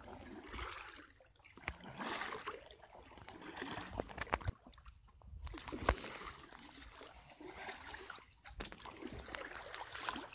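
Kayak paddles dipping and splashing in shallow stream water, with water trickling off the blades between strokes, as an inflatable tandem kayak is paddled. A few sharp knocks come through, the loudest cluster about halfway through.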